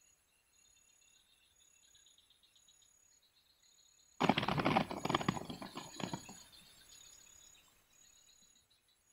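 Insects chirp faintly in quick pulsed trills. About four seconds in, a loud crackling rustle starts suddenly and fades away over the next two seconds or so.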